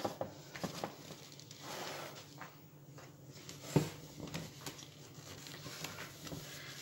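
Screw lids on glass jars being gripped and twisted tight by hand through a terry towel: cloth rustling with small clicks of the lids and glass, and one sharp knock about four seconds in.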